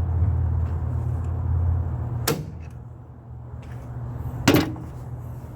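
Two sharp clacks, the second one louder, over a steady low machine hum that drops off right after the first clack.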